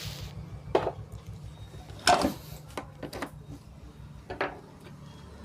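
Handling noises on a repair bench: four separate knocks and clicks, the loudest about two seconds in, over a low steady buzz that fades out near the end.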